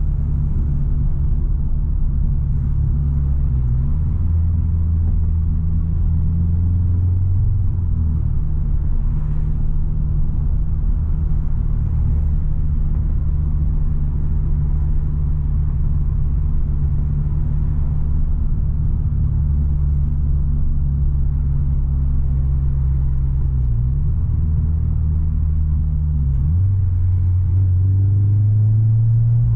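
Subaru BRZ's flat-four engine and loud, deep-toned exhaust heard from inside the cabin while cruising: a steady low drone that shifts pitch a few times and rises near the end as the car speeds up.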